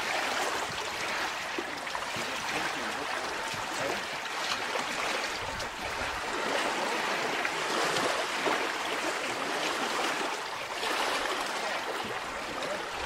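Steady, rushing noise of choppy lake water lapping and splashing around a pontoon, swelling and easing every second or two.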